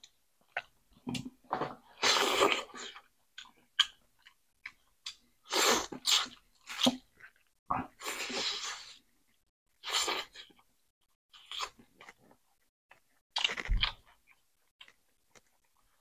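Close-miked eating, mukbang-style: irregular chewing and wet mouth clicks, with a few longer noisy slurping or breathing sounds about two and eight seconds in.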